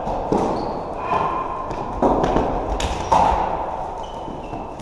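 Floorball play in a sports hall: a run of sharp clacks and taps from sticks and the plastic ball, with three louder hits, and a few short high squeaks near the end.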